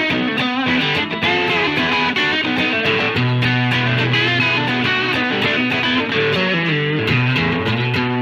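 Electric guitar with single-coil pickups, played through a Fender Vibrolux Reverb amp with drive from a ZVex Distortion pedal. It plays a run of changing notes, then a long sustained low note from about three seconds in.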